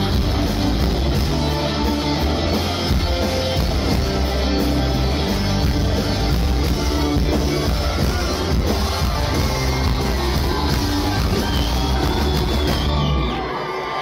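Live rock band playing loud without vocals: electric guitars, bass and drum kit. Near the end the band stops and crowd cheering takes over.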